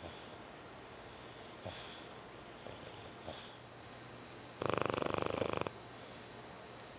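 English bulldog snoring in its sleep: one loud, rattly snore about a second long a little past the middle, with a few faint clicks before it.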